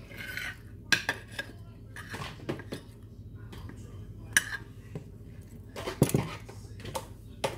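Cutlery clinking and knocking against dishes during a meal, in irregular short strikes, the loudest about six seconds in.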